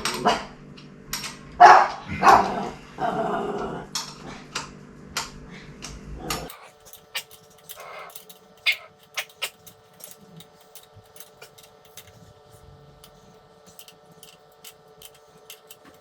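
Dog barking several times in the first few seconds, the barks loud and sharp. After an abrupt change about six seconds in, only scattered light clicks and taps over a faint steady hum.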